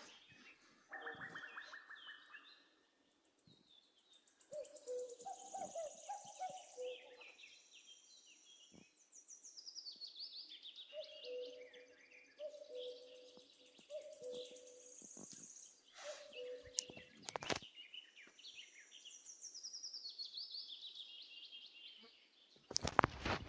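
Faint birdsong outdoors: scattered chirps and a run of notes falling in pitch, heard twice, with a lower call repeated several times. A few brief knocks come about two-thirds of the way in.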